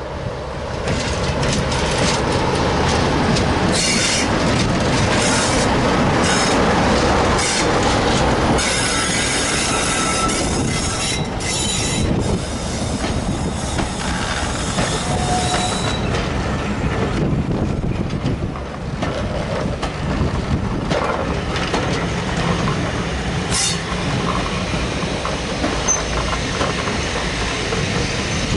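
A Class 47 diesel locomotive with its Sulzer engine passes close by, loudest in the first several seconds. Its train of passenger coaches then rolls past, the wheels knocking over the rail joints, with thin flange squeals coming and going.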